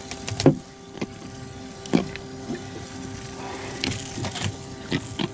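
A freshly caught jack thrashing on a fiberglass boat deck: a series of sharp, irregular slaps and knocks as it is grabbed, over a steady hum.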